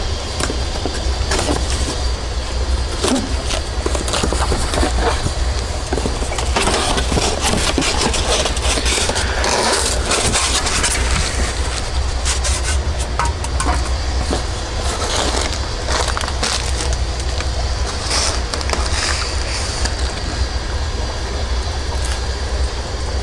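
A cardboard shipping box being opened and the styrofoam liner and plastic fish bags inside handled: continuous rustling and crinkling with many small clicks, over a steady low hum.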